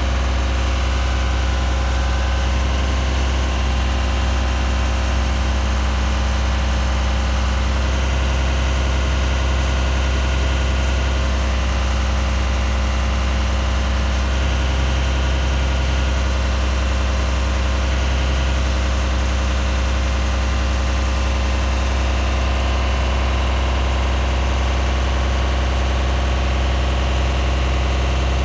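Diesel engine of a 2014 Genie Z-45/25J articulating boom lift running at a steady pace with a deep, even hum while the boom and jib are moved hydraulically.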